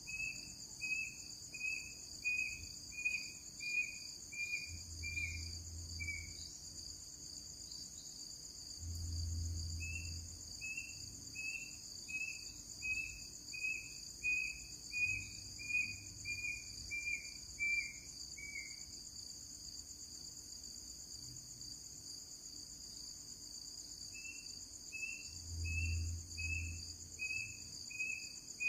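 Steady night-time insect chorus of crickets trilling, with an unidentified animal call cutting through: short, evenly repeated notes at about two a second, in three runs of a dozen or more, each run dropping slightly in pitch at its end.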